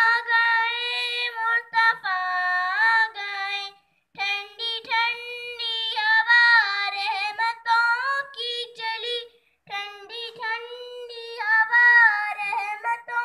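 A young girl singing a naat, an Urdu devotional song, solo in a high voice with no instruments. She sings in held, ornamented phrases, with brief pauses about four and ten seconds in.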